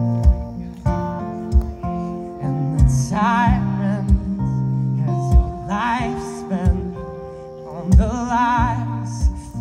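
Live rock band playing an instrumental passage: an electric guitar plays a lead line with wavering vibrato notes over sustained acoustic guitar chords, low held notes and regular drum hits.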